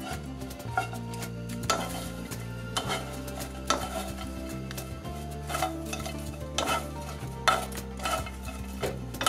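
Large dried anchovies rattling and scraping in a nonstick pan as two wooden spoons toss them, with a sharp clack from the spoons about once a second.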